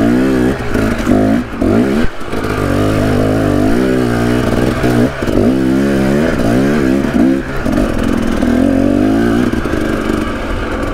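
Husqvarna enduro dirt bike's engine revving up and down, the throttle opened and rolled off again every second or so while the bike is worked slowly through a technical section of trail. There are a few brief drops in engine sound near the start and in the middle, with wind rushing over the helmet camera.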